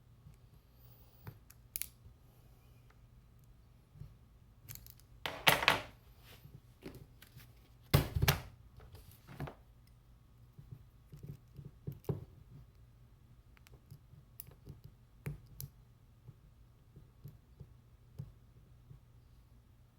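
Lock picks and tension wrenches working in locks: scattered small metallic clicks and scrapes, with two louder rattling clatters about five and eight seconds in.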